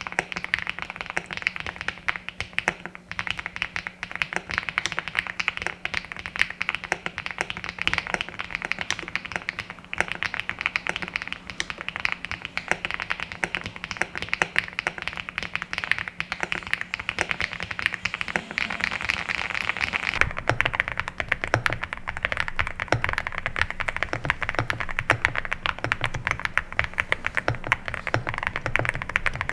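Fast continuous typing on an EVO80 mechanical keyboard fitted with an FR4 plate and HMX Azure switches. About twenty seconds in it switches to the PP-plate build with Keygeek Oat switches, whose keystrokes sound lower and deeper.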